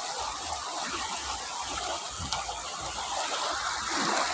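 Swift river current rushing steadily.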